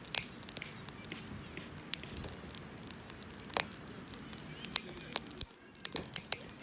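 Wood campfire crackling in a Coleman Fire Disc fire pit: irregular sharp pops and snaps over a low hiss, briefly dropping out about five and a half seconds in.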